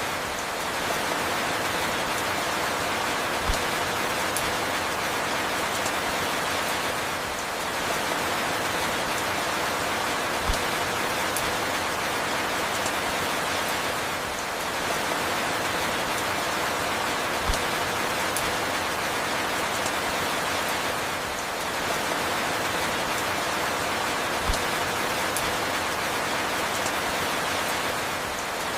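Steady rain falling, an even hiss of drops, with a soft low knock recurring about every seven seconds.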